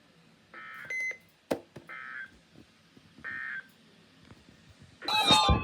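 Three short warbling data bursts of an Emergency Alert System end-of-message code, a little over a second apart, marking the end of the broadcast weather warning. Near the end a loud alert tone with falling pitches cuts in.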